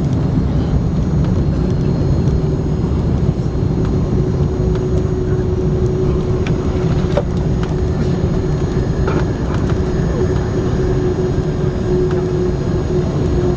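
Airbus A300 cabin noise on the ground: a steady, loud rumble of engines and rolling, with a steady hum running through it.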